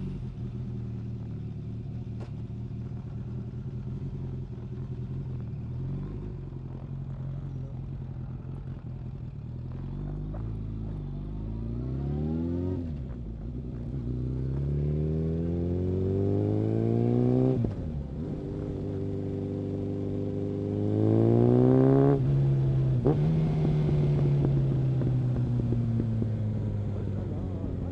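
Suzuki Bandit 650's carbureted inline-four through a Mivv aftermarket exhaust, under way: a steady running note, then revving up in rising sweeps, with the pitch dropping suddenly twice as it shifts up, and slowly falling near the end as the throttle is rolled off.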